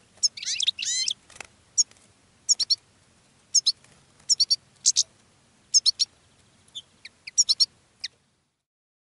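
Caged decoy finches calling: a quick twittering run in the first second, then short high chirps in pairs and triplets about once a second.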